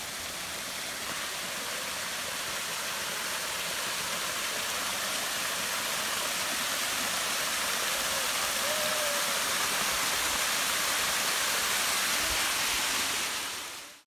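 Small waterfall of acid mine drainage from an abandoned coal mine, water spilling and splashing down a rock bank in a steady rush that grows slightly louder over the first half and fades out at the very end.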